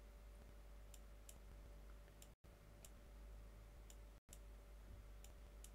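Near silence: faint room hiss with a steady low hum, broken by a few faint, scattered clicks. The sound cuts out completely for an instant twice.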